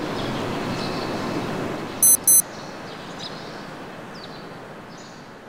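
Steady outdoor background noise, louder for the first two seconds, with two short, high electronic beeps about two seconds in. A few faint high chirps follow.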